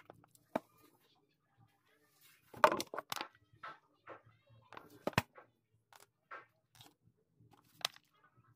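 Small metal parts of a diesel fuel injection pump clinking and tapping as they are handled, with irregular clicks and a louder cluster of knocks and rattles about two and a half to three seconds in.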